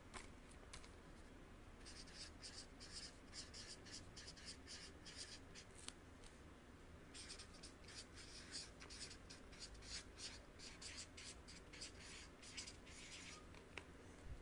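Faint felt-tip marker writing on paper: many quick, short strokes starting about two seconds in, with a pause of about a second midway.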